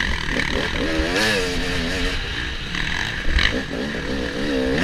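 Dirt bike engine running hard under racing load, its pitch repeatedly rising and falling as the throttle is worked on and off.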